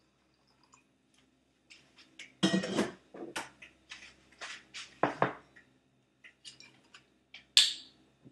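Kitchen clatter: a run of knocks and clinks as dishes and utensils are handled. The loudest come about two and a half seconds in, around five seconds, and near the end.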